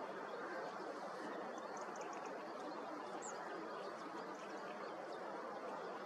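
Steady low background hiss with a few faint, high bird chirps: a short run of them about two seconds in and a single one a second later.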